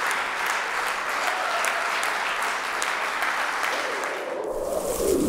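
Audience applauding with steady clapping. The applause cuts off abruptly about four seconds in, and a short sound falling in pitch follows near the end.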